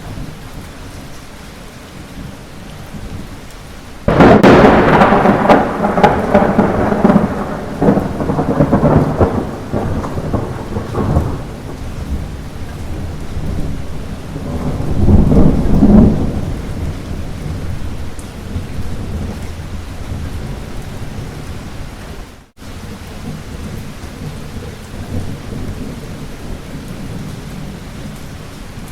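Steady light rain with thunder: a sudden loud clap about four seconds in that rumbles on and fades over several seconds, then a second rumble swelling and dying away in the middle. The sound cuts out for an instant later on.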